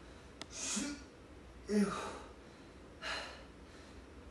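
A man's forceful, breathy exhales of effort during one-arm dumbbell rows, three in a row about a second and a quarter apart, each starting with a short low grunt. A small click comes just before the first.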